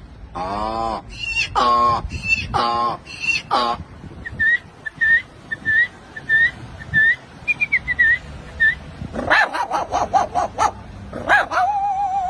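A man imitating animals with his voice. First come four pitched, falling, dog-like yelps, then a run of short whistled bird chirps, then a burst of rapid harsh calls near the end.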